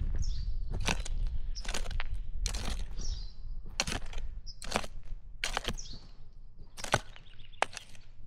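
A hand tool chopping and scraping through garden soil in steady strokes about once a second, as potato rows are hilled up by hand.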